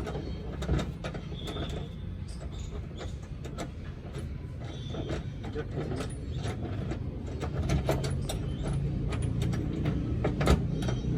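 Scattered clicks and knocks of hands and tools working on a car's boot, over a steady low rumble.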